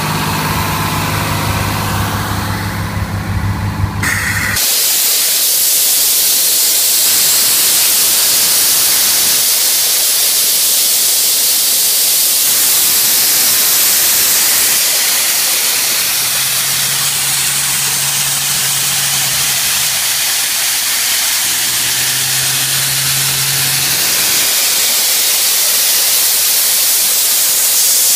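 The engine of a 1996 LeRoi 850 CFM portable air compressor running. About four seconds in, a loud, steady hiss of compressed air rushing out takes over and drowns the engine, whose low hum comes back faintly twice near the end.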